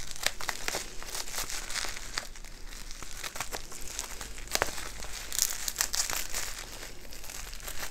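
Plastic bubble wrap crinkling and crackling in irregular bursts as it is handled and cut open with scissors.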